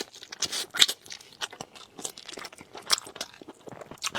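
Close-miked chewing and biting of a salt-baked hen drumstick: an irregular run of short, sharp crunching and tearing clicks.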